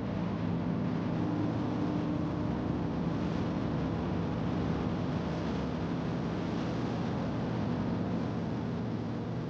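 Steady drone of a cruise ship under way: a low engine hum under an even rushing noise.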